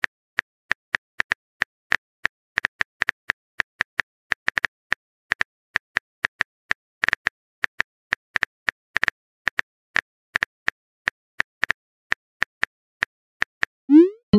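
Phone keyboard typing clicks: short, sharp taps at an uneven pace of about three or four a second, as a message is typed out. Near the end comes a short rising swoop, a message-sent sound.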